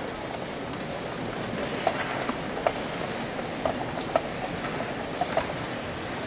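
Steady murmur of a large playing hall with about a dozen sharp, irregular clicks and taps, from chess pieces set down and chess clocks pressed at nearby boards.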